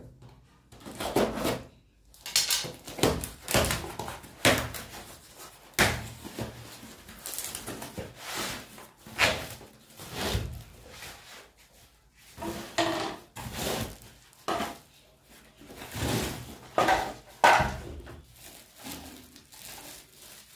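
Hands opening a taped cardboard carton and lifting out plastic bottles in clear plastic film: cardboard crackling and scraping, plastic wrap crinkling, and irregular knocks.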